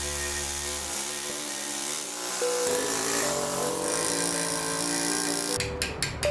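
Pneumatic carving hammer driving a fine chisel over a marble bust, a steady hissing chatter. Near the end it becomes a quick run of separate sharp taps, about five a second.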